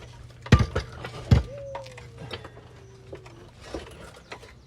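Heavy metal knocks and clanks from car parts and tools being handled: three loud ones in the first second and a half, then lighter clicks. A thin tone falls slowly in pitch for about two seconds.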